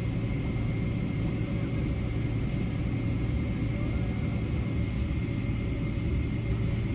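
Steady cabin noise inside an airliner rolling along the ground after landing: an even low rumble with a faint steady high whine.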